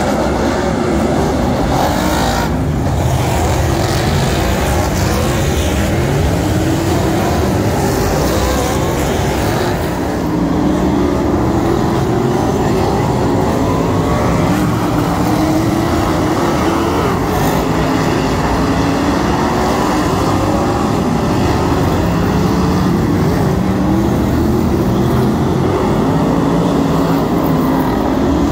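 A pack of winged sprintcars racing on a dirt speedway oval: many engines running together in a loud, continuous roar, their pitch rising and falling as the cars go through the turns and past.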